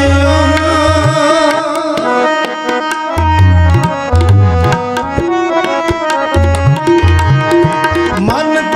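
Shabad kirtan: harmoniums hold steady drone chords while a tabla plays a brisk rhythm, with sharp treble strokes and deep bass thumps from the bayan. A man's voice sings near the start and comes back near the end, with a mostly instrumental passage between.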